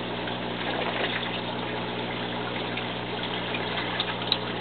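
Water running and trickling steadily through a vertical garden of horizontal PVC grow pipes as the aquaponics system circulates, over a steady low hum.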